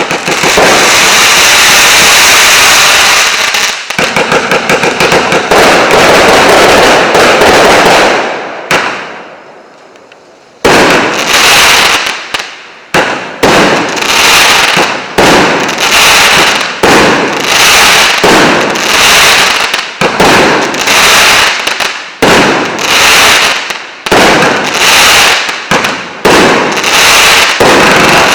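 A combined firework cake (multi-shot battery, 1.2-inch and 1-inch tubes) firing. A dense, rapid volley runs for about eight seconds and dies down. After a short lull, loud single bursts follow about once a second, each with a quick fading tail.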